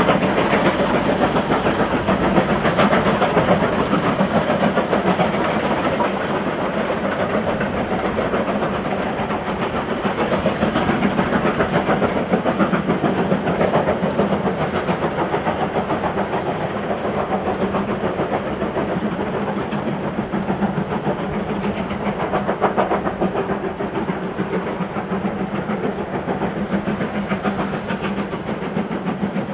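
Steam tank locomotive working hard with a goods train, its exhaust beats coming in a quick, steady rhythm.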